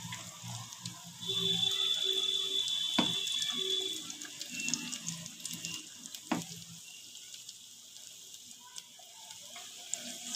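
Prawns deep-frying in hot oil: a steady sizzle with crackling. A steady high tone sounds over it from about a second in to about four seconds in, and two sharp clicks come near the middle.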